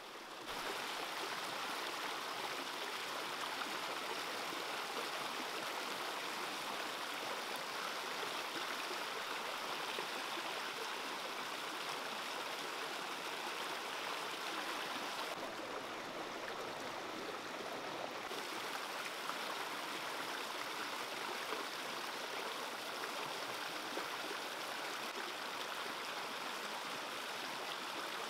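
Water rushing and splashing over rocks in a small stream cascade: a steady rush of water noise. It gets louder about half a second in and sounds duller for a few seconds near the middle.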